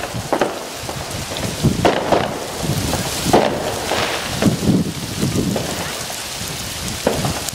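Aerial fireworks going off: an irregular, quick run of bangs and crackles from bursting shells, several a second at the busiest moments.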